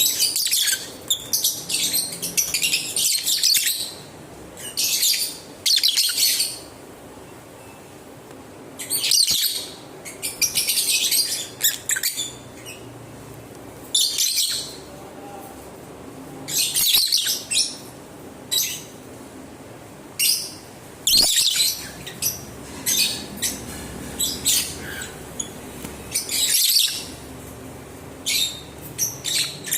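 Lovebirds chirping in repeated bouts of rapid, high-pitched chatter, with pauses of a second or two between bouts.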